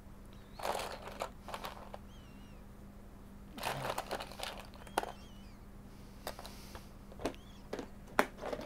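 Hands rummaging through small items, rustling and clattering in a few short bouts, with separate light clicks and taps in between.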